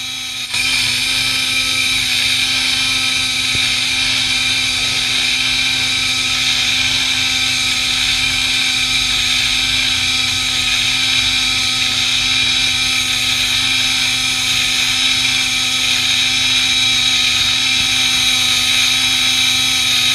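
Small battery-powered portable blender running, blending milk: a steady motor whine that steps up louder about half a second in and then holds even.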